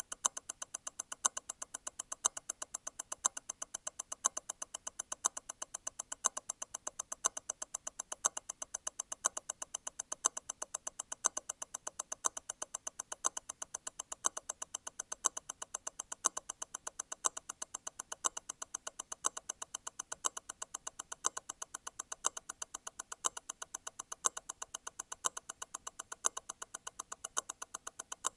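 Grand Seiko T0 Constant-force Tourbillon movement ticking at 28,800 vibrations an hour, a fast, even beat with a louder tick about once a second. The louder tick is the constant-force stop wheel letting go and striking again once every eight vibrations.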